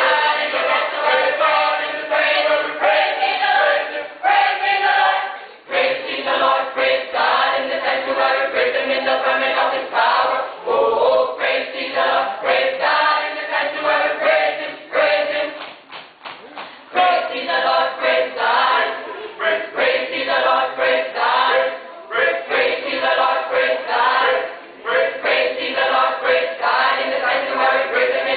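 Church choir singing in many voices together, with a couple of brief breaks between phrases.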